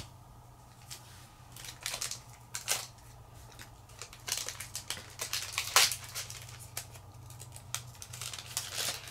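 Japanese Pokémon card booster pack's foil wrapper crinkling and tearing as it is torn open by hand: a run of sharp crackles that thicken about halfway through and again near the end.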